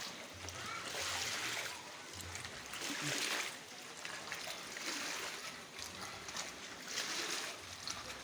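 Rainwater being bailed out by hand: repeated splashes of water scooped and thrown, about one every two seconds, over a steady trickle.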